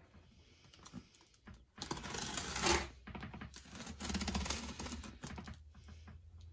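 Scissors blade slitting packing tape on a cardboard box: two strokes of rapid crackling rasp, the first about two seconds in and the second a little after the middle.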